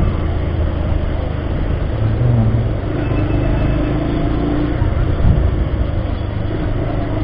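Bajaj Pulsar 150 motorcycle's single-cylinder engine running steadily at low speed in town traffic, heard from the rider's seat over a steady rush of wind and road noise, its pitch lifting slightly a couple of times.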